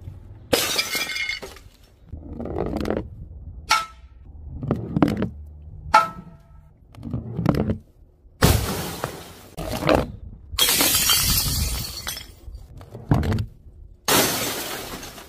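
A bowling ball rolling down a wooden ramp and smashing glass, a mirror and then a CRT television screen: a string of separate crashes of breaking glass, with three longer, louder shattering bursts in the second half.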